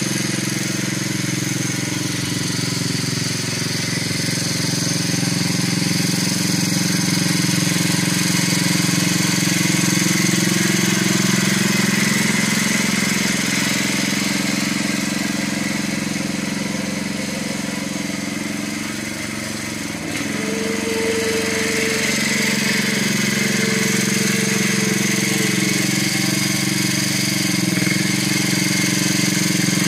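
Early-1970s Sears Custom-7 garden tractor's engine running steadily as the tractor drives across the lawn. It fades a little past the middle, then comes back louder, with a steady whine joining it for several seconds.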